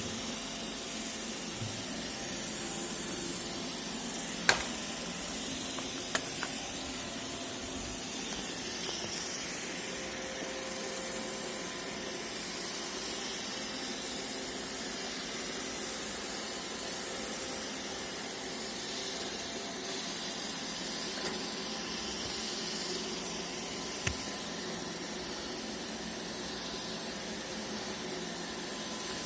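iRobot Roomba e5 robot vacuum running with a steady whirring hiss of its suction fan and brushes, with a few short sharp knocks, the loudest about four and a half seconds in.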